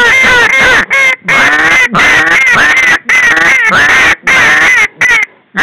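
Hand-blown goose call worked hard and fast, a string of loud honks and clucks, each breaking from a low note up to a high one, a few every second, meant to draw a passing flock in to the decoys.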